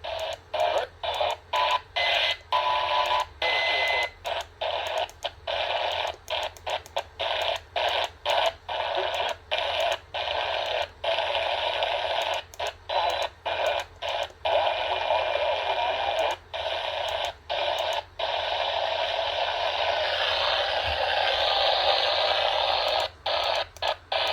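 AM radio tuned to 1150 giving only static hiss, with no broadcast coming through. The hiss is cut by frequent short, irregular dropouts.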